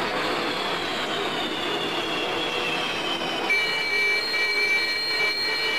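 Fighter jet engines running on a carrier deck: a steady rush with a high turbine whine that slides slowly down in pitch. About three and a half seconds in, it changes abruptly to a set of steady high whines.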